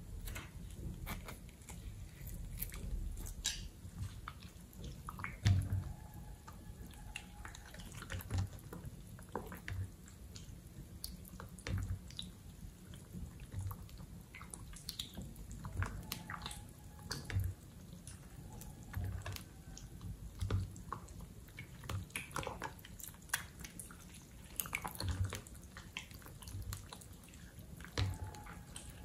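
Wet, runny slime being stirred and then kneaded and squeezed by hand, giving irregular sticky squelches and small wet pops.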